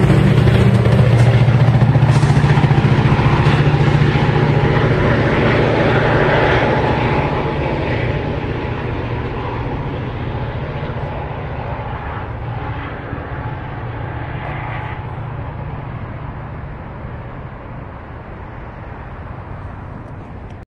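Metra diesel locomotive and its train pulling away: a low engine drone with rail rumble, loud at first and fading steadily as the train recedes.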